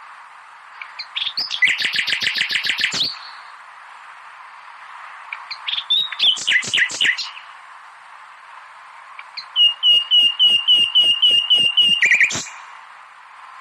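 A songbird singing three separate phrases of high chirps a few seconds apart; the last is a quick run of about ten repeated notes, some four a second. A steady faint hiss lies underneath.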